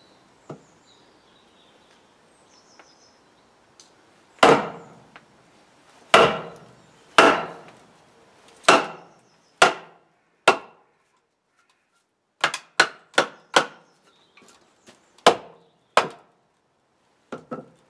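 A wooden club striking the back of a steel froe blade to drive it down into a birch log and rive off a board. About four seconds in come six heavy blows roughly a second apart, then a quick run of lighter taps and a few more blows near the end.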